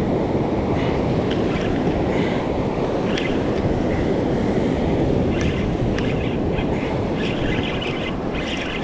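Wind buffeting the microphone over breaking surf, with light irregular ticking from a spinning reel as its handle is cranked.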